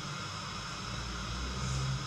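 Steady hissing of a gas stove burner heating an empty round-bottom wok to season it.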